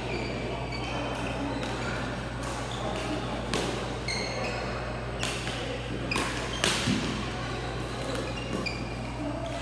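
Badminton racket strings smacking the shuttlecock in a doubles rally, several sharp hits a second or two apart, the loudest about two-thirds of the way in, echoing in a large sports hall. Short squeaks of court shoes and distant voices sound between the hits over a steady low hum.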